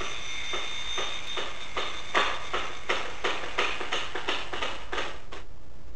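A steady run of sharp taps, about three a second, quickening a little and stopping about five and a half seconds in, over a faint hiss.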